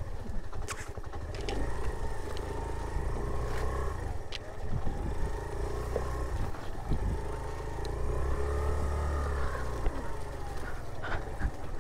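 Suzuki Van Van 125's single-cylinder four-stroke engine running at low speed, its note rising and falling with small throttle changes as the bike picks its way along a deep rut. There are a few light knocks.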